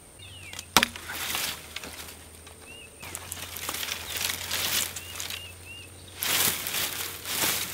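Long-handled loppers snip through a green branch with one sharp snap about a second in. Leafy brush then rustles in several swishes as the cut branch is dragged out of the thicket.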